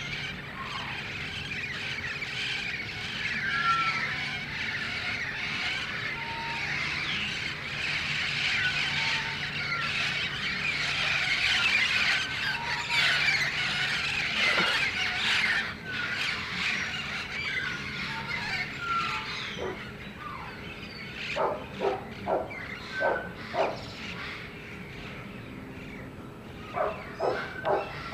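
A flock of red-crowned parrots screeching in flight, many shrill calls overlapping densely, thinning to separate loud calls after about twenty seconds.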